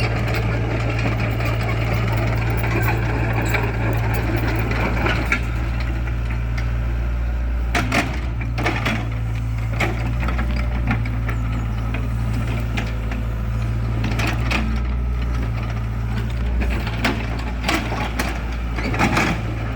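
Excavator's diesel engine running steadily while it digs, with sharp knocks and clanks here and there, a cluster of them about eight seconds in and again near the end.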